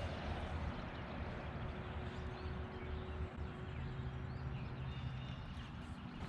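Outdoor lake ambience: a steady rushing background noise with a faint low hum, and faint bird chirps in the second half.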